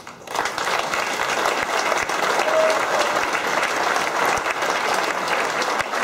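Audience applause breaking out just after the start and going on as dense, steady clapping at the close of a choir song.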